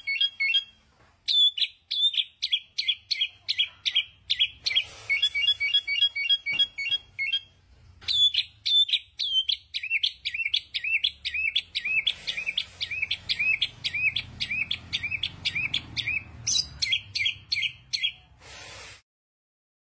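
Caged samyong songbird singing: a long series of loud, clear whistled notes, about two or three a second, each a quick hooked note. The run is broken by fast chattering trills near the start, in the middle and near the end, and it stops abruptly just before the end.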